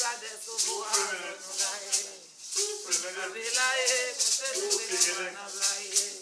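A ceremonial rattle shaken in a steady beat of about three shakes a second, with voices singing a chant over it.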